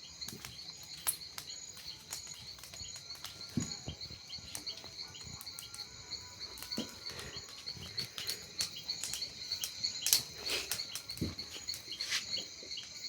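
Crickets chirping steadily in a high, fast-pulsing chorus, with scattered sharp crackles and pops throughout; a few louder pops stand out.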